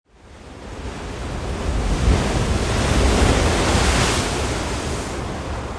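A rushing, surf-like noise that fades in, swells to its loudest about four seconds in, and eases off near the end.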